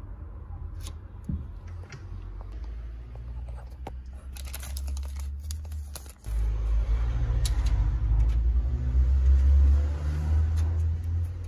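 A small plastic parts bag of washers crinkling, with a few light clicks, over a low rumble that grows louder about halfway through.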